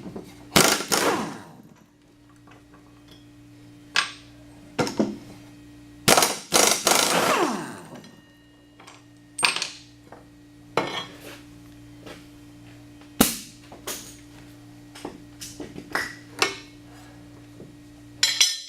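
Steel lawn mower blades, bolts and hand tools clanking and clinking as the blades are taken off a mower deck: a dozen or so irregular metal knocks. One about half a second in and another around six seconds in ring on for a second or more.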